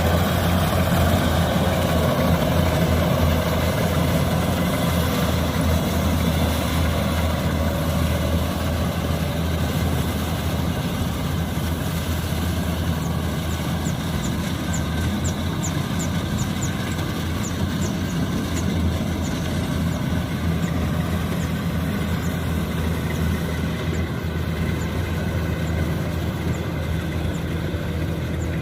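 Kubota DC-95GM combine harvester's diesel engine running steadily with the rattle of its machinery, slowly growing a little quieter.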